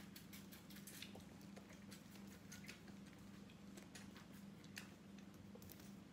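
Faint, irregular wet clicks of a young goat sucking milk from a baby bottle, over a low steady hum.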